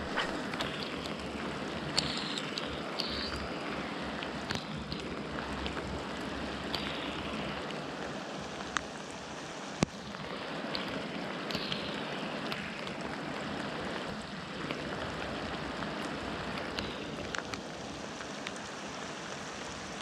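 Steady rush of flowing river water, with scattered small clicks and a few short, high sounds falling in pitch.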